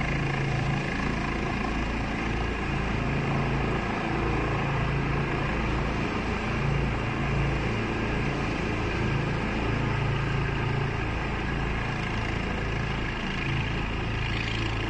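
Light helicopter's engine and rotors running steadily while it flies slowly near the camera.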